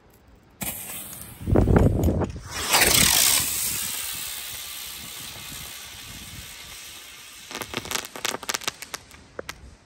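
Aerial helicopter firework: a fuse fizzes about half a second in, then the helicopter ignites with a loud hissing whine that slowly falls in pitch and fades as it spins up and away. It ends in a run of crackling pops near the end. A brief scuffling noise comes between the fuse and the lift-off.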